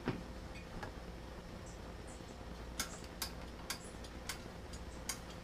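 Sharp, irregular clicks and taps of a racking cane being worked in a glass jug of mead to start a siphon: one click at the start, then a run of them about half a second apart from about three seconds in.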